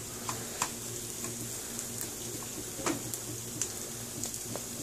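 Diced sausage frying in oil in a pan: a steady sizzle with a few scattered pops and clicks.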